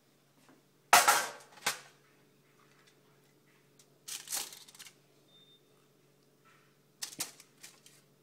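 Kitchen handling noises from a pan of food being moved. A loud sharp clank comes about a second in, a short rustling scrape follows around four seconds, and a few quick clicks and knocks come near the end.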